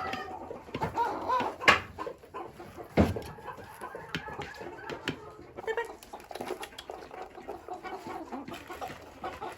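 Chickens clucking in short, scattered calls, with two sharp knocks about two and three seconds in.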